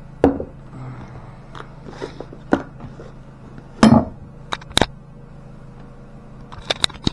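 Knife boxes and packaging being handled and set down: scattered knocks, taps and clicks, the loudest about four seconds in, with a quick run of clicks near the end.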